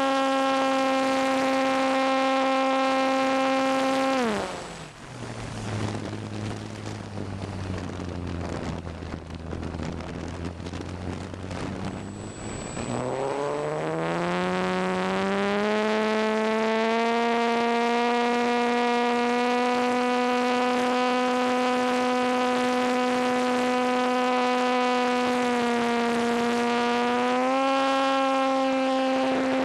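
Electric motor and propeller of a ParkZone T-28 Trojan RC plane, heard close up from on board, running at a steady high whine. About four seconds in the motor winds down quickly to a low drone mixed with air rush. About twelve seconds in it spools back up, the pitch climbing over a few seconds to a steady whine that rises again briefly near the end before falling away.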